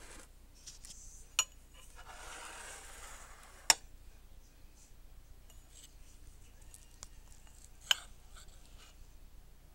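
Metal spoon clinking against a white ceramic ramekin of blueberry cobbler, three sharp clinks with the loudest near the middle, and a soft scrape between the first two.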